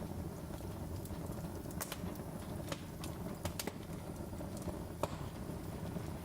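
Wood fire in a fireplace crackling: irregular sharp pops and snaps over a low steady rumble of burning logs.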